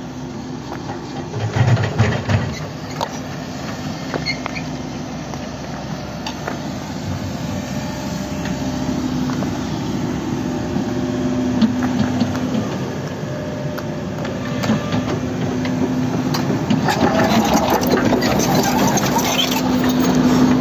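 Diesel engine of a Hidromek HMK 140 tracked excavator running steadily, with a constant hum, growing louder over the last few seconds. Scattered short squeaks and clicks sound over the engine.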